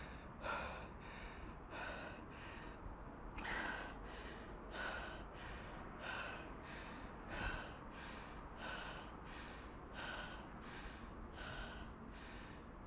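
A person's hard, rhythmic breathing, in and out, about three breath sounds every two seconds: a runner out of breath after sprinting up 221 stairs in about 46 seconds.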